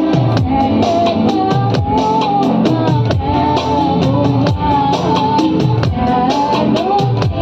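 Instrumental break in a devotional song: a lead melody with gliding notes over a steady drum beat, with deep bass notes sliding downward about once a second.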